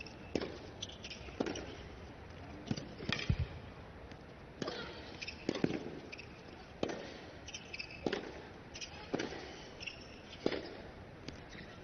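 Tennis rally: racket strikes on the ball and the ball bouncing on a hard court, a sharp hit about every second.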